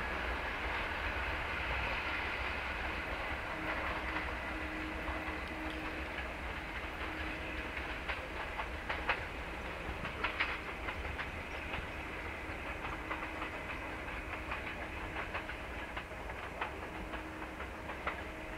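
Passenger train coaches rolling away over the rail joints and points. A steady rolling noise fades slowly, and sharp wheel clicks come in a cluster about halfway through, with a few more later.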